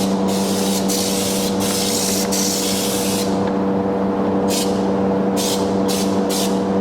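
Compressed-air hiss: one continuous spray for about three seconds, then a string of short spurts, as from a trigger being pulled and let go. A steady motor hum runs underneath throughout.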